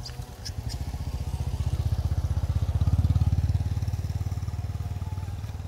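A motor vehicle engine running with a low, rapid throb that grows louder to a peak about halfway through, then eases off.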